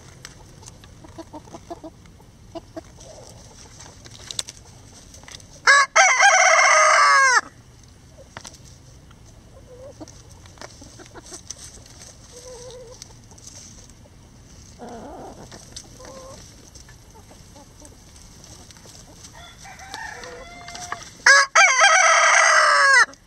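A rooster crowing twice, loud and close, about six seconds in and again near the end. Each crow is a short note followed by a long held call. Soft clucks from the hens come between the crows.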